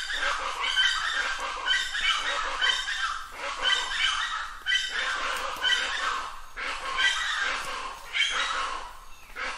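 Plain chachalaca calling: a loud, harsh series of repeated raucous notes, about one phrase a second.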